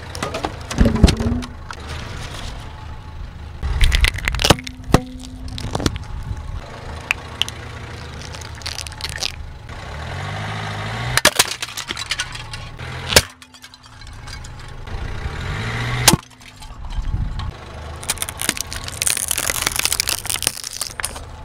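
Car tyre slowly rolling over and crushing plastic objects: children's plastic tumblers and squeeze bottles of slime. Several separate loud cracks and snaps of plastic splitting come a few seconds apart, with a hiss near the end.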